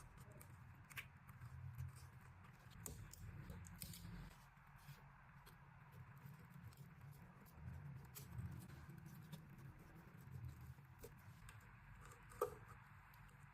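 Faint, scattered small clicks and light taps of repair work on a Huawei P50 Pocket phone during a screen replacement, over a low steady hum, with one sharper click about twelve seconds in.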